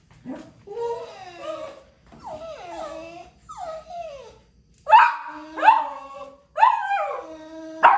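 A dog whining and crying in drawn-out calls that fall in pitch. From about five seconds in come four louder, sharper yelping cries. It is a distressed whine, like a dog shut in and desperate to be let out.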